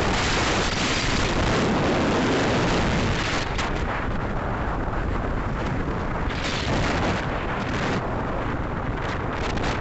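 Wind buffeting the microphone of a moving vehicle: continuous low rumbling noise with road noise beneath. The upper hiss thins out about three and a half seconds in and returns in short gusts.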